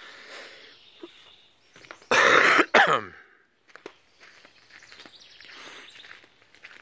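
A deer's alarm snort: a loud, forceful blow of air through the nose about two seconds in, in two parts that end in a falling tone, after a fainter blow at the start.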